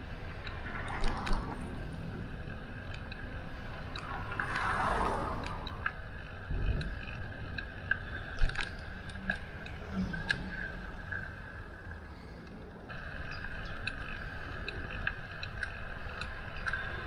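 Bicycle ride noise: a steady rush of rolling and moving air with scattered clicks and rattles, and a louder swell about five seconds in.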